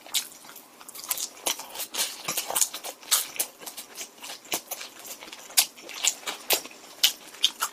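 A person chewing a mouthful of thin-crust pizza close to the microphone: a run of irregular, quick clicking mouth sounds.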